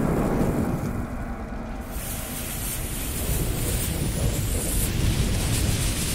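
Intro sound effects of a lit fuse fizzing and flames, over a continuous deep rumble, with the hiss strongest in the middle.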